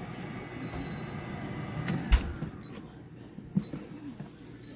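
A vehicle running steadily, then a sharp thump about two seconds in, after which the running noise drops off. Faint short high beeps and a softer knock follow.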